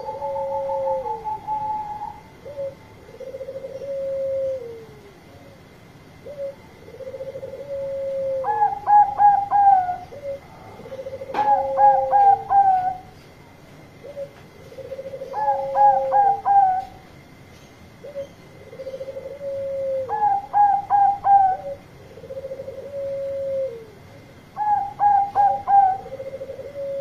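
Bangkok-strain zebra doves (perkutut) cooing. A low drawn-out coo that drops at the end repeats every couple of seconds. From about eight seconds in, bursts of four quick, higher staccato notes come every few seconds.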